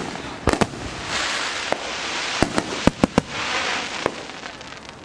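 Aerial fireworks shells bursting: about seven sharp bangs, several in quick succession, with crackling, hissing stars between them.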